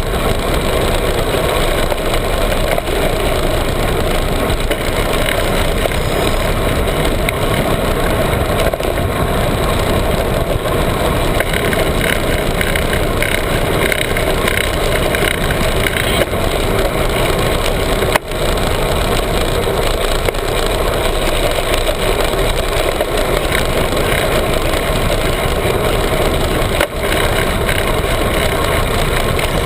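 A vehicle engine running steadily under a loud, even wash of noise, with two brief dips, one about two-thirds of the way through and one near the end.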